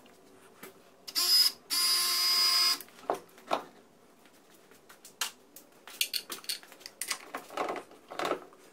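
A power tool running in two spurts, a short one about a second in and a longer one of about a second right after, followed by a string of light clicks and knocks as bolts and metal fittings on an outboard motor's transom bracket are handled.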